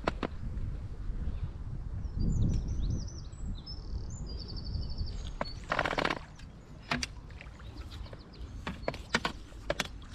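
Wind rumbling on the microphone, with birds chirping. Brief splashes and sharp clicks come as a hooked carp is played at the surface, the loudest about six seconds in.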